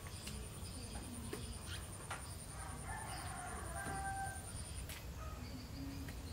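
Chickens calling faintly in the background, short clucks and calls, over a steady high-pitched insect buzz that breaks off about five seconds in.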